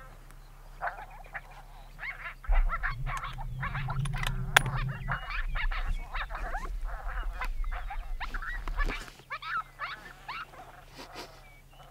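Coyote pup yips, whines and short howls in quick succession, denning sounds played by a FoxPro CS24C electronic predator caller. A low rumble runs under the calls from about two and a half seconds to nine seconds in, and there is one sharp click about four and a half seconds in.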